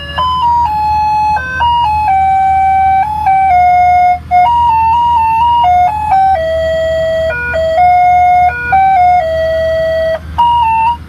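A simple electronic chime tune playing a melody one note at a time, each note held briefly, over a steady low hum; it stops abruptly at the very end.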